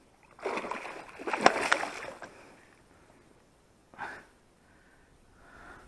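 Water splashing for about two seconds as a pike thrashes in a landing net at the surface, with one sharp slap in the middle. A single short splash follows about four seconds in.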